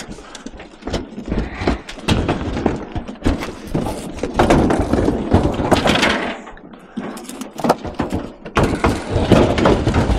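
Scrap metal being dragged and shifted on a truck bed: a run of scrapes, knocks and clatters, with a brief lull about two-thirds of the way through.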